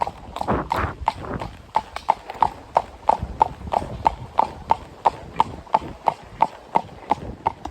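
Standardbred horse's hooves clip-clopping on a road at a trot, in an even beat of about three strikes a second.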